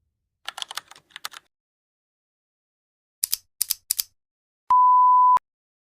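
Two short runs of quick, sharp clicks like keys being typed, followed about a second later by one steady electronic beep at a single pitch lasting under a second.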